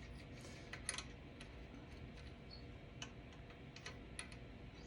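Faint, irregular small clicks of metal parts being handled: a Heim joint rod end and bolt being picked up and fitted to the clutch pushrod.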